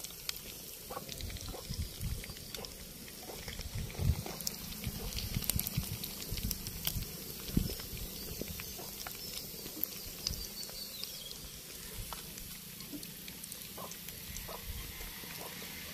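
Masala-coated fish frying in hot oil in a clay pot over a wood fire: a steady sizzle with scattered sharp pops and crackles, and a few low thuds.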